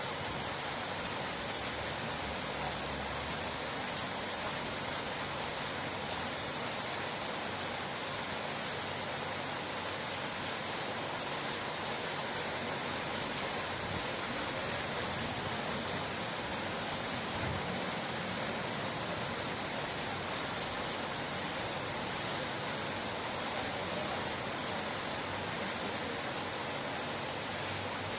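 Running water rushing steadily and evenly, with no breaks or changes.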